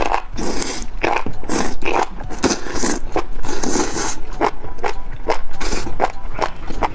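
Close-up eating sounds: a person slurping thin noodles from spicy broth, with several sharp hissing slurps, then chewing with wet, clicky mouth sounds.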